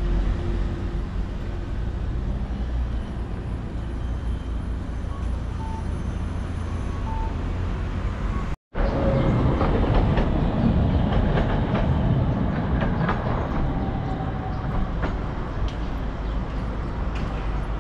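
Steady low rumble of city street traffic, with a brief gap about nine seconds in.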